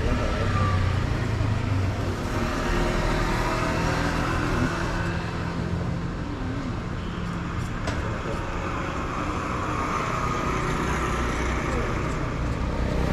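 Steady road traffic noise: vehicle engines running and passing.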